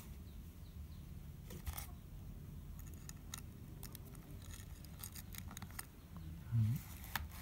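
Faint clicks and small rattles of hands fitting wire leads and plastic parts onto a cordless drill and its battery, with a dull low thump near the end.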